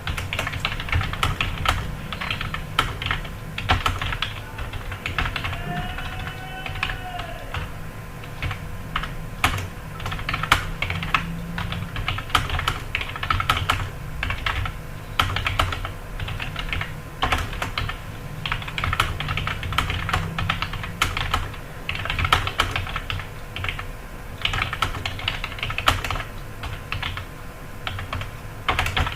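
Fast typing on a computer keyboard: rapid keystroke clicks in runs of a second or two, broken by brief pauses, over a steady low hum.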